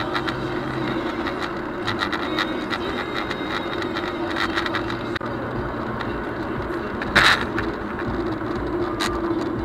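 Steady road and engine noise inside a car driving at highway speed, picked up by the dashcam's microphone, with light clicks and rattles throughout. A brief louder rushing burst comes about seven seconds in, and the sound dips for a moment at a cut about five seconds in.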